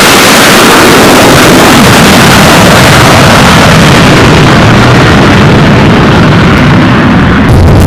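F/A-18 fighter jet's engines at full power during a catapult launch, a loud, dense rush that thins out in its highest sounds as the jet climbs away. Near the end it changes abruptly to a deeper rumble.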